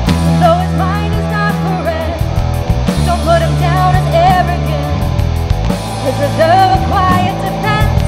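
Live rock band playing: a woman sings over electric guitar, electric bass and drums, with sustained bass notes and regular cymbal hits.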